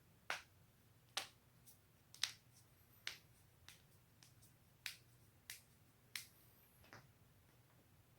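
Human joints cracking: a series of about ten short, sharp pops at irregular intervals, some louder and some faint.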